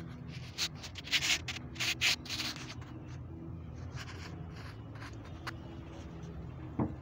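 Several short rubbing, scraping noises in the first three seconds and another near four seconds in, over a steady low hum.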